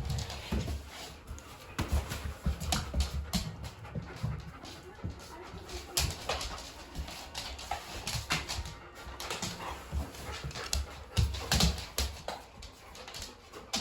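Dogs moving about and panting, with scattered irregular knocks, thumps and clicks.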